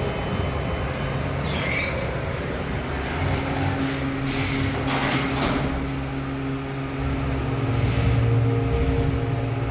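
Stainless-steel sliding doors of a 2015 MEI hydraulic elevator closing, then a steady hum from the hydraulic pump unit as the car starts upward, growing louder about eight seconds in.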